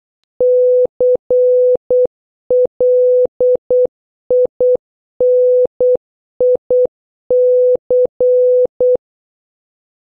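Morse code sent as an electronic beep of one steady pitch, long dashes and short dots in six letter groups, spelling the word CLINIC (-.-. .-.. .. -. .. -.-.).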